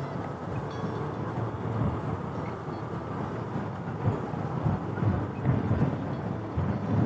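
Suzuki V-Strom 250 motorcycle riding at road speed: its parallel-twin engine running under uneven wind buffeting on the helmet microphone.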